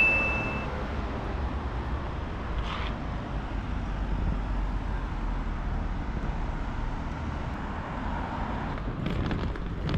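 City street traffic: cars passing with a steady low rumble of engines and tyres that swells in the middle. A brief high steady beep is heard right at the start.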